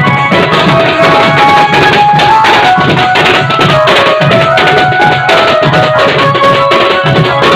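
Instrumental music: a fast hand-drum rhythm under a melody of held notes that step up and down in pitch.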